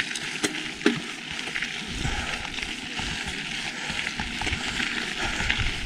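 Mountain bike rolling along a dirt and gravel trail: a steady crackling of tyres on the loose surface, with a few sharp clicks and rattles in the first second.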